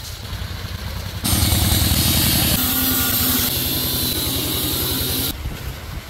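An engine running loud and steady close by, with a low pulsing beat and a steady hum. It cuts in abruptly about a second in and stops abruptly about a second before the end.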